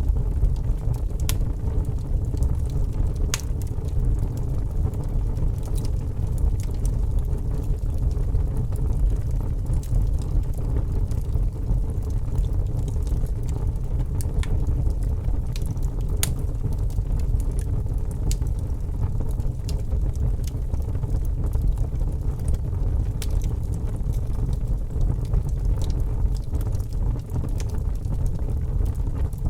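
Wood fire crackling, with sharp pops at irregular moments over a steady low rumble.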